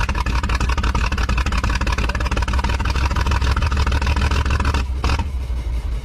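Old car engine, newly revived on the restoration bench, running fast and rough with a dense, rapid firing beat. It runs without coolant and has very heavy blow-by. About five seconds in the sound breaks and thins as the engine starts to be shut down.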